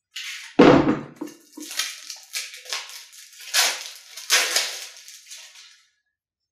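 A thump about half a second in as a card deck is pulled from the plastic box insert, then the shrink-wrap on the card decks crinkling and rustling in a string of short bursts as it is handled and peeled.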